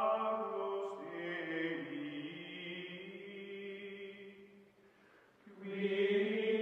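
Background music of long, held chant-like vocal notes. It fades away about five seconds in and swells back half a second later.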